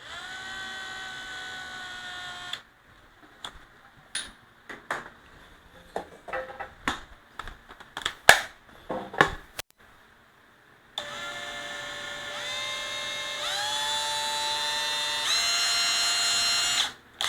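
Cordless drill (EZ6470) motor being test-run with no load: a steady whine for a couple of seconds, then clicks and knocks of the tool being handled. Then a longer run in which the whine steps up in pitch three or four times as the variable-speed trigger is squeezed harder, before it cuts off.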